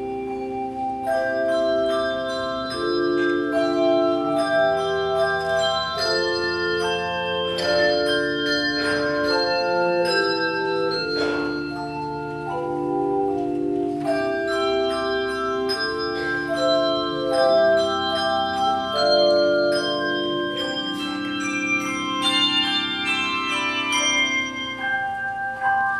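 Handbell choir ringing a hymn arrangement: overlapping chords of ringing bells that change about once a second under a melody line, with a few sharper struck notes about halfway through.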